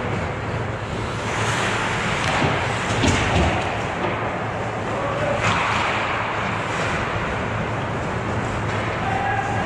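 Hockey skates scraping and carving on rink ice, with two louder hissing scrapes and a sharp knock about three seconds in.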